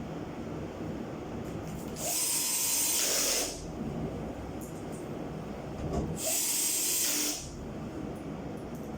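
A power tool run in two short bursts, the first about two seconds in and the second about six seconds in, each stopping abruptly.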